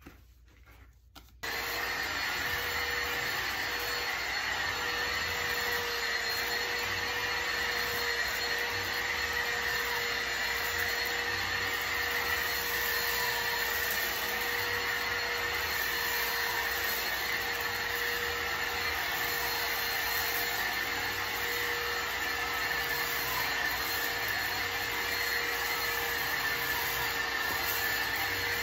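Bissell ReadyClean 10.8V cordless stick vacuum switching on about a second and a half in, then running steadily with a constant motor whine as it is pushed over a shaggy rug. A few faint clicks come just before it starts.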